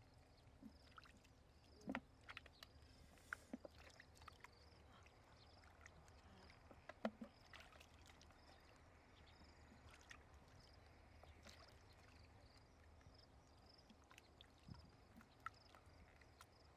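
Faint splashing and sloshing of shallow pond water as hands work in it around a plastic basket trap, in scattered small splashes, the loudest about two and seven seconds in. A faint high chirp repeats steadily behind it.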